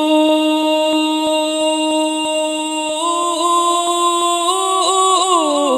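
A male voice reciting a Punjabi naat without instruments, holding one long note for about three seconds, then stepping up and bending through ornamented glides that fall away near the end as the line closes. Faint evenly spaced ticks sound behind it.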